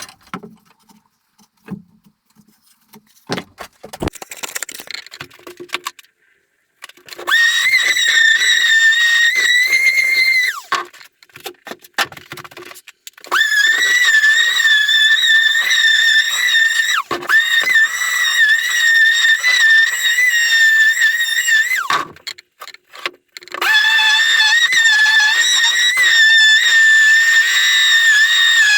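Electric sander running in three spells, a steady high-pitched whine that winds down in pitch each time it is switched off, after a few seconds of clicks and knocks from handling the work.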